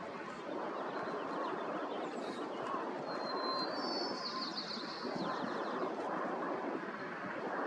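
DHC-3 Turbo Otter floatplane taxiing on the water, its turboprop engine running steadily as a constant rushing drone. A small bird chirps a short trill about three to four seconds in.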